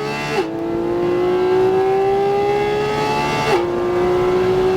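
Porsche 718 Cayman GT4 RS's naturally aspirated flat-six accelerating hard, its pitch climbing steadily through the gears with two quick upshifts, about half a second in and again about three and a half seconds in.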